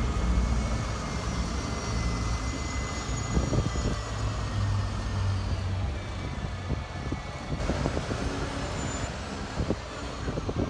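City buses driving slowly past and pulling away, a steady low engine drone with a thin whine over it that fades about halfway through.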